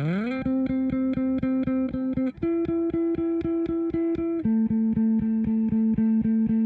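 Electric guitar played through the Plutonium All Tube, picking a single note about five times a second in a riff. It slides up in pitch at the start and moves to a higher note and then a lower one.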